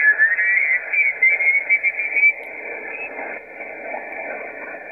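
HF transceiver's speaker in lower sideband being tuned up the 40-metre band. An off-tune SSB voice comes through as high, chirping warble for about two seconds, then only the hiss of band noise remains.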